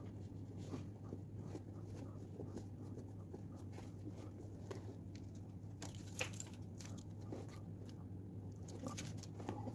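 Faint, irregular small clicks and taps of handling over a low steady hum.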